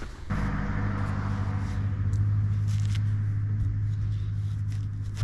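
Power drill driving screws, its motor running steadily at one speed, with a short click at the end.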